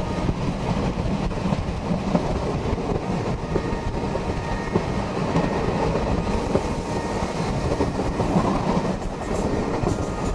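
Steady, loud rumbling and rattling mechanical noise.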